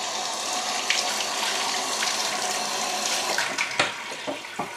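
Kitchen tap running steadily while hands are washed under it. About four seconds in the flow drops and short splashes and knocks follow.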